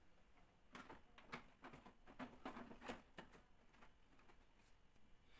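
Faint plastic clicks and light knocks as the humidifying tray and water tank of a Daikin humidifying air purifier are handled, most of them between about one and three seconds in.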